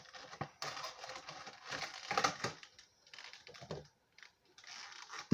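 Cardboard Funko Pop box and its plastic packaging being handled and opened: irregular scraping, rustling and clicking, with a sharp click near the end.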